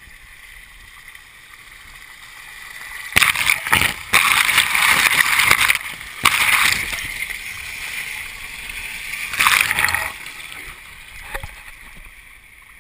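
Pool waterfall pouring and splashing close to the camera. It is quieter at first, comes on loud and sudden about three seconds in as the water crashes on and around the camera, and drops back to quieter lapping after about ten seconds.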